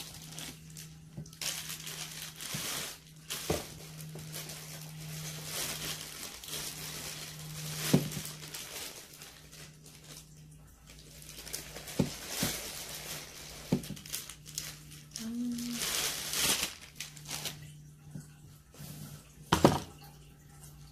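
Clear plastic packaging crinkling and rustling as it is handled and unwrapped, with a few sharp clicks and knocks, over a steady low hum.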